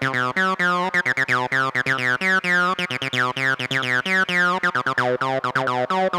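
Behringer TD-3 analog bass synthesizer playing a fast repeating acid bass line of short notes, each with a resonant filter sweep falling in pitch, as a knob on the synth is turned. Reverb has been added to the sound.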